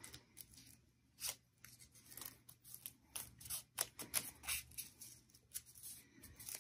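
Crepe paper being accordion-folded by hand: faint, irregular crinkles and rustles as the folds are pressed in.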